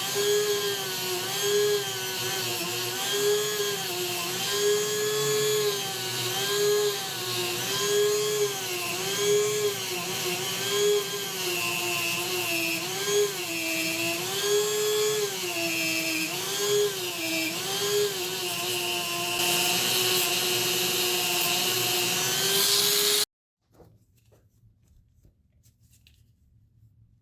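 Small electric power tool running, its whine dipping in pitch and recovering about every second and a half as it is pressed into the work. It cuts off suddenly near the end, leaving only faint handling sounds.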